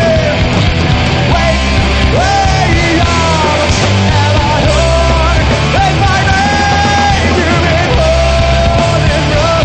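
Loud punk rock music from a full band, with a sung vocal line holding long wavering notes over a dense, steady band sound.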